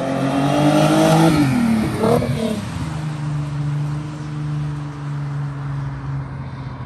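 A car engine revving high, its revs dropping steeply about a second and a half in with a quick blip, then running at steady lower revs as the car pulls away after a tyre-smoking burnout.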